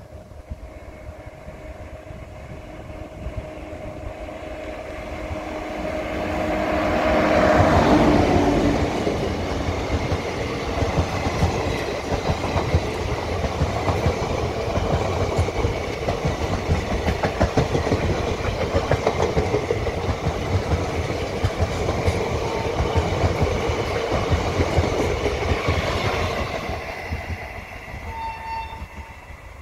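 Indian Railways WAP-5 electric locomotive hauling a passenger express at about 59 km/h, sounding a long horn as it approaches and passes about eight seconds in. Then comes the steady rhythmic clickety-clack of the coaches' wheels over the rail joints, which fades near the end as the last coach runs away.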